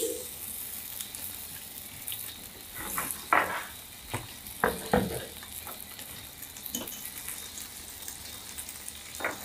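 Vegetables sizzling as they fry in a pan, stirred with a utensil, with a few short knocks and scrapes between about three and five seconds in.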